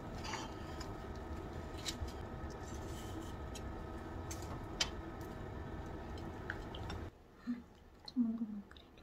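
Steady kitchen hum with a few light clicks of a wooden spatula against a ceramic plate as crisp fried rolls are lifted onto it. About seven seconds in the hum cuts off, leaving a quiet room with a couple of short low murmurs from a person.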